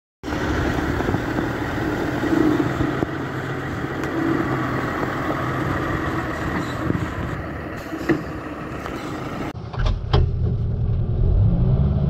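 Log truck's diesel engine running steadily. About nine and a half seconds in the sound changes abruptly to the steady low hum of the log loader's engine heard from inside its cab, with a couple of sharp clicks just after.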